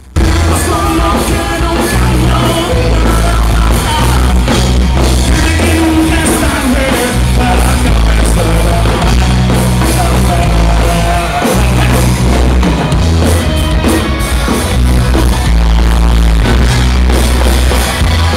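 Loud rock band music with heavy bass, drums, electric guitars and vocals, cutting in abruptly.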